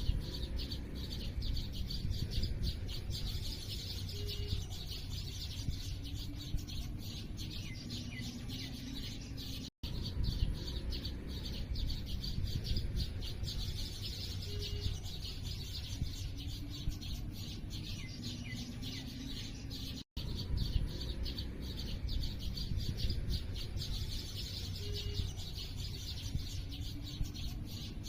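Many small birds chirping and tweeting rapidly and continuously over a low steady rumble. The same stretch of about ten seconds repeats, broken by a brief dropout roughly every ten seconds.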